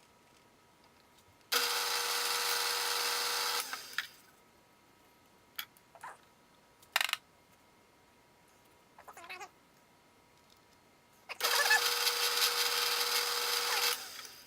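Drill bit cutting into a steel plate in a Bridgeport milling machine, two pecks of about two seconds each that start and stop suddenly, with a faint steady hum and a few light clicks between them.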